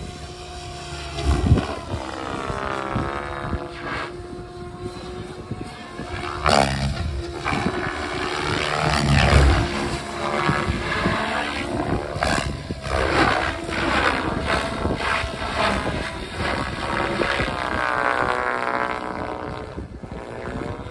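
XLPower 700 V2 radio-controlled helicopter flying 3D aerobatics: its rotor blades whir with a pitch that rises and falls again and again as it swoops and flips. There are several louder whooshes.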